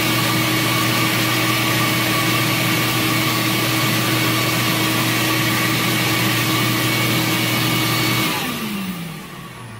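Cylinder-head flow bench running steadily with a hum and whine, pulling air through a port of a Chrysler 318 casting #302 head at a steady test pressure while the flow is read. About eight seconds in it is switched off and its motors wind down, the whine falling in pitch.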